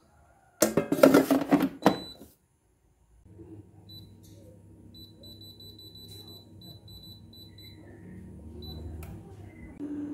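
Plastic clatter and knocks as an air fryer's basket drawer is pushed home, then short high beeps from its touch panel, several in quick runs, as the buttons are pressed to set the timer. A low steady hum comes in and grows louder near the end as the air fryer starts running.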